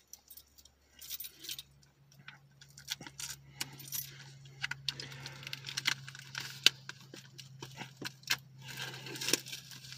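Keys jangling while a key scratches and picks at the plastic wrapping of a movie disc case, in irregular clicks and scrapes. A steady low hum starts about a second in.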